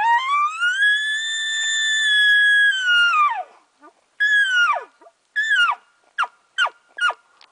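Elk bugle: a high whistling call that climbs, holds for about three seconds and drops away. It is followed by about five short, falling chuckle notes.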